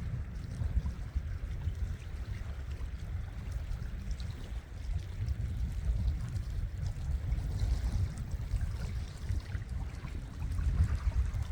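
Wind buffeting the microphone in an uneven low rumble, over the wash of sea water.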